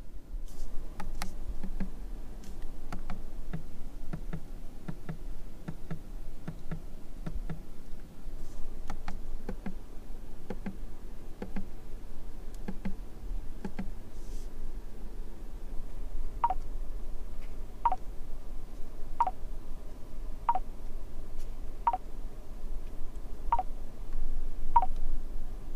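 A car's indicator ticking steadily inside the cabin, about a tick and a half a second. About two-thirds of the way through, the ticks turn brighter and sharper.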